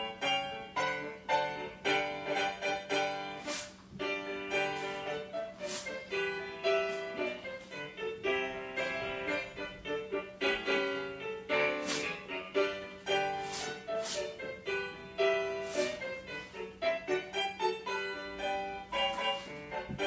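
Piano accompaniment for a ballet barre exercise, starting suddenly and playing a brisk, rhythmic tune with crisply struck, evenly paced notes and accented chords.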